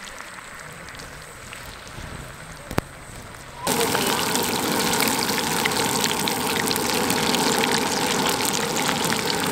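Chicken lollipops deep-frying in a black kadai of hot oil: a steady sizzle, fainter at first, then a sudden jump about four seconds in to a loud, dense crackle of bubbling oil.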